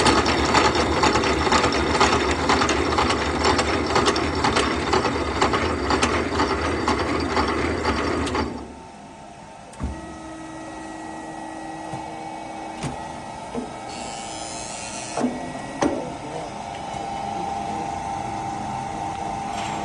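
Conveyor roller shaft milling machine cutting, a dense rattling chatter that stops about eight and a half seconds in. The machine then runs on more quietly with a steady hum, a few clicks and a brief hiss.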